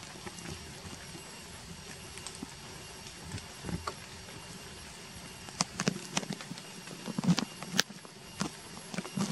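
Dry leaf litter crackling and tapping underfoot. A few faint crackles come early, then an irregular run of sharp crackles and taps starts about halfway through and is loudest near the end, over a faint steady background hiss.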